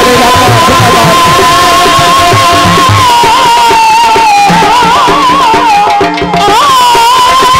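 Amplified Punjabi folk singing: a singer holds one long, wavering note that breaks into quick ornaments about halfway through, over drum beats.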